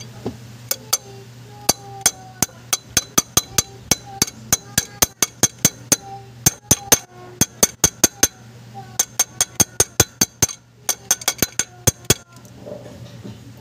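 Hand ratchet wrench clicking in quick, even runs of about three to four metallic clicks a second, broken by short pauses. A faint steady hum runs underneath.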